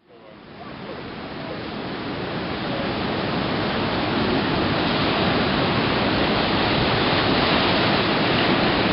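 Heavy surf breaking over rocks and a harbour breakwater: a steady rush of churning, crashing seawater that fades in over the first few seconds.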